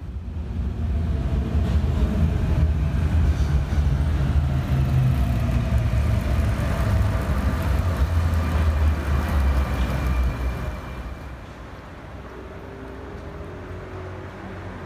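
Road traffic: a motor vehicle running close by, loud for the first ten seconds or so, then easing off about eleven seconds in to a quieter, steady traffic hum.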